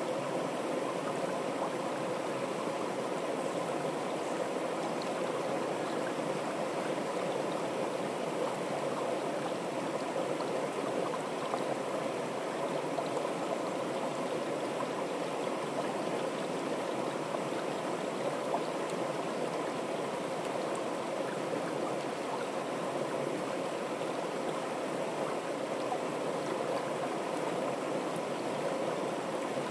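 River water pouring over a small stepped weir into a churning pool: a steady rushing and splashing of falling water.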